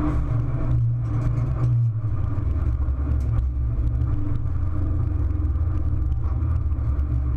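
Fiat Abarth 500 Assetto Corse race car heard from inside its stripped cabin: the engine runs at low revs off the throttle as a steady deep rumble, with road noise and scattered knocks and rattles.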